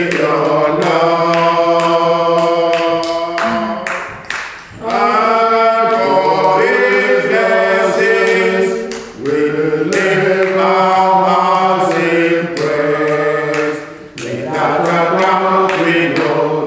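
Unaccompanied singing: long held sung phrases with no instruments, broken by short breaths about every four to five seconds.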